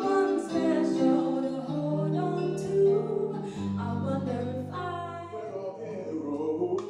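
A woman singing a slow song into a microphone, accompanied by an electric guitar.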